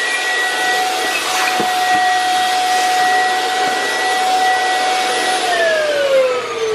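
Vacuum cleaner running with a steady whine, its hose sucking the air out of a plastic trash bag. About five and a half seconds in it is switched off, and the whine falls in pitch as the motor spins down.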